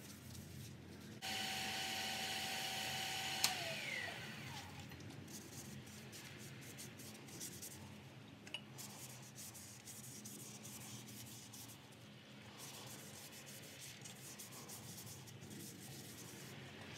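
A rag rubbing over a turned cypress vase on a wood lathe, wiping on a Danish oil finish. A little over a second in, a steady motor whine comes up; about three and a half seconds in there is a click and the whine falls away as the lathe spins down, and the rag rubbing goes on.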